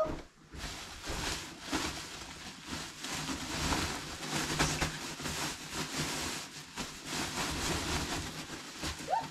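Steady rustling and scrunching of clothing being handled and dug out of a bulk clothing sack, with irregular louder crinkles throughout.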